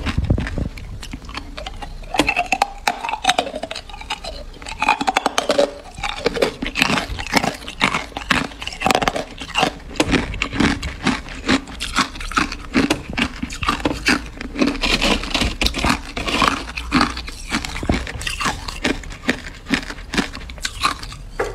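Hard ice crunching, with many sharp cracks in quick, uneven succession.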